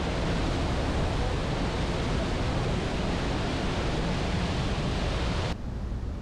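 Steady rush of wind on the microphone, heaviest in the low end, that cuts off abruptly about five and a half seconds in to a quieter hiss.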